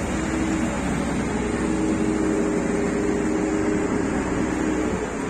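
A steady engine or machine hum with a couple of held tones, fading away near the end.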